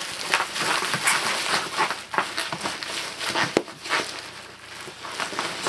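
Plastic bubble wrap rustling as it is dragged out of a cardboard box, with styrofoam packing peanuts spilling and tumbling onto the cardboard in an irregular run of small clicks and taps. There is one sharper tap a little past halfway.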